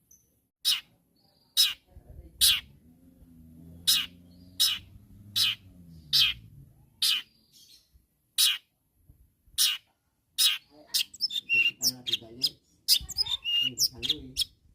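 Long-tailed shrike (cendet) giving harsh, rasping single calls about once a second. In the last few seconds it breaks into a faster, varied run of chattering and whistled notes.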